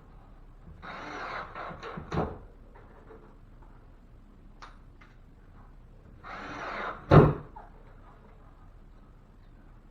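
Work noise from fitting wood backing: twice, a scraping rustle about a second long ends in a sharp knock, the second knock the loudest.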